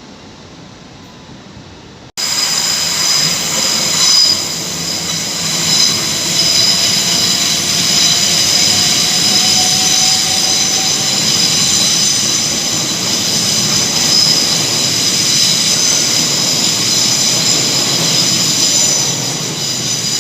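Hitachi Class 800-series intercity train moving at a station platform, with a loud high-pitched squeal of several steady tones held together over its running noise. A fainter tone slowly rises in pitch partway through. A quieter stretch of train noise cuts off abruptly about two seconds in.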